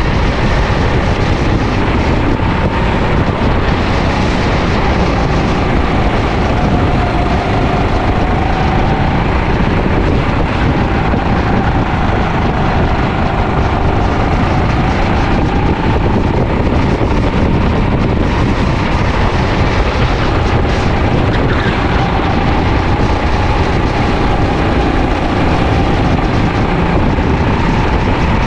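Sodi LR5 rental kart's four-stroke engine running at racing pace, heard onboard, its pitch rising and falling gently through the corners, over heavy wind noise on the microphone.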